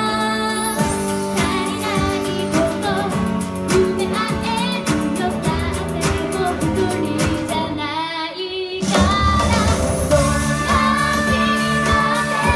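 Two female singers performing a J-pop song live into microphones, with electric keyboard and a steady beat. The accompaniment thins out briefly about eight seconds in, then comes back in full.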